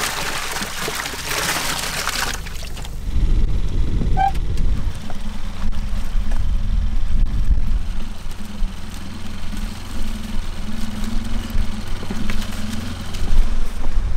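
Water splashing and pouring, then from about three seconds in a steady low motor rumble.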